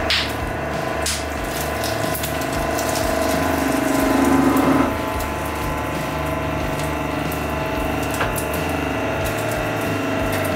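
Hydraulic press running with a steady pump hum as its ram crushes a rubber ball. There is a sharp crack right at the start, a weaker one about a second in, and a louder crunching swell around four to five seconds in.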